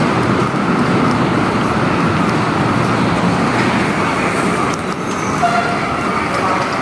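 Steady, loud rumble of moving vehicles.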